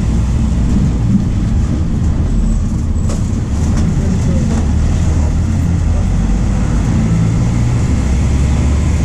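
MAN D0834 four-cylinder diesel of a VW 17.230 OD bus running under way, a steady low drone. The drone dips briefly about three seconds in.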